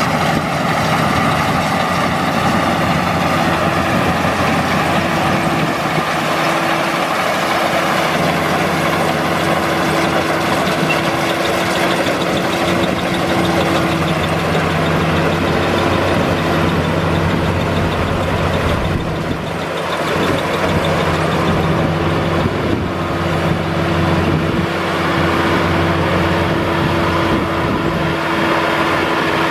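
Rice combine harvester running steadily, a constant mechanical drone with a steady hum, dipping briefly about two-thirds of the way through.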